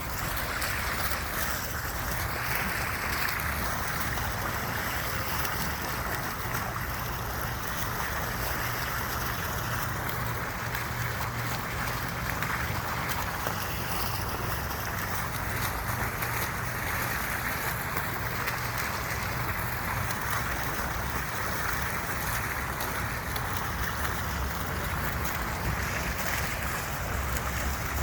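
Steady white noise: an even, unbroken rushing hiss with a low rumble beneath it.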